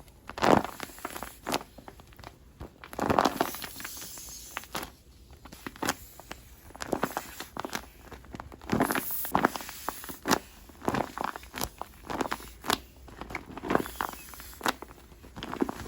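Irregular clicks, taps and rustles close to the microphone, a few louder bursts among many small ones: handling noise.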